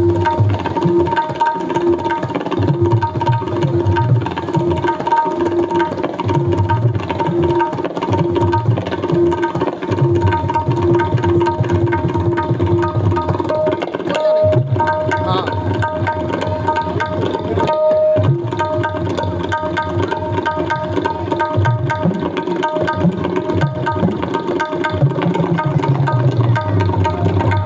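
Tabla being played in a fast, steady rhythm: quick ringing strokes on the tuned right-hand drum over deep bass-drum strokes, with the bass pitch bent up and down near the end.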